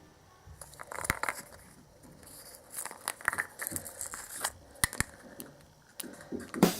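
Crinkling and tearing of a surprise egg's wrapper being unwrapped by hand, with a few sharp clicks, the loudest about a second in and near the end.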